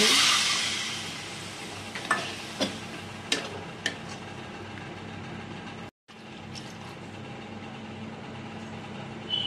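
Water poured into hot fried masala in a kadhai hisses and sizzles loudly, dying away over the first second or so. Then a steel spatula stirs the thin gravy, with a few sharp clicks and scrapes against the pan.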